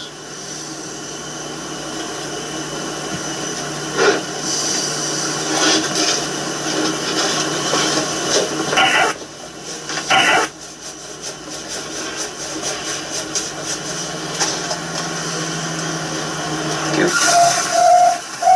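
Steady hiss of background noise with a low hum under it, broken by a few short knocks, the first about four seconds in and two more around nine and ten seconds, and growing louder near the end.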